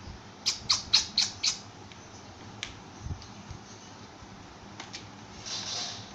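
A small bird chirping five times in quick succession, all within about a second. A soft scratchy rustle follows near the end.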